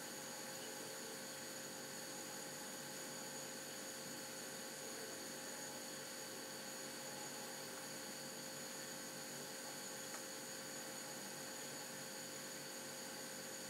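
Steady electrical hum and hiss with faint, unchanging high-pitched whines: background room tone, with no distinct event.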